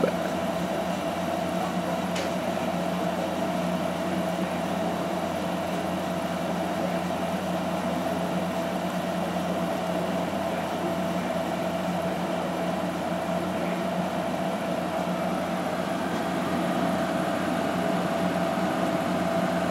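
Frigidaire 8,000 BTU window air conditioner running: a steady fan whir with a constant hum while it blows cold air.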